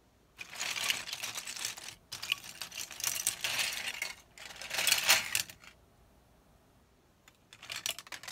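Loose plastic LEGO bricks clattering in a heaped pile as hands dig through it and pull pieces out: three spells of rattling over the first five seconds or so, then a short patter of clicks near the end.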